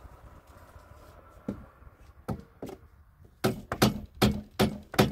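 Hammer blows on a wooden wall board: a few scattered knocks, then from about three and a half seconds in a steady run of blows, two to three a second, typical of nailing a plank to a frame.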